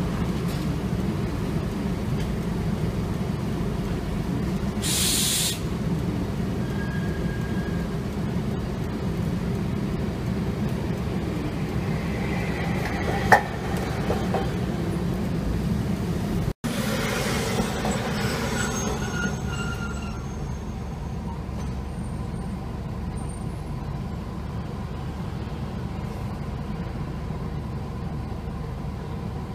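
Hankai Tramway streetcars: a steady rumble as a tram rolls through a street crossing among road traffic, with a brief hiss about five seconds in and a sharp metallic ring about thirteen seconds in, the loudest sound. After a cut, a tram standing at a stop hums with faint high-pitched whines.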